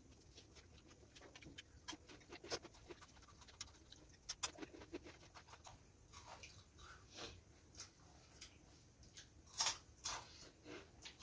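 Faint eating sounds: scattered soft clicks and smacks of chewing and of fingers tearing rice-flour flatbread on steel plates, with a louder short rustling burst near the end.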